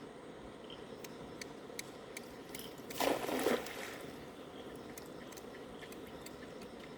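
A cast net landing on the river with a short splash about three seconds in, over the steady sound of flowing river water and faint scattered clicks.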